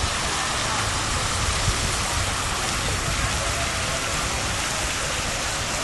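Steady rushing and splashing of the square's fountain jets falling into the pool.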